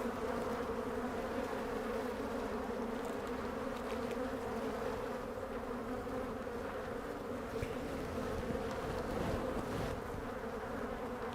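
Many honey bees buzzing around an opened hive during an inspection: a steady, even hum that does not change.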